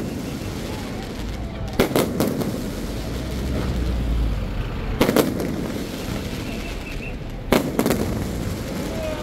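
Aerial fireworks going off overhead: three clusters of sharp cracking bangs, each group a few bursts in quick succession, about two and a half seconds apart.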